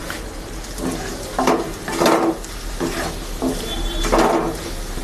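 Wooden spatula scraping and stirring potato chunks frying in spices around a metal kadai, in about six separate strokes over a light sizzle.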